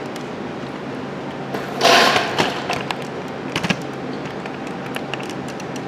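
Handling noise from a hand-held camera being carried: a brief rubbing rush about two seconds in, then a few light clicks and knocks, over a steady low hum.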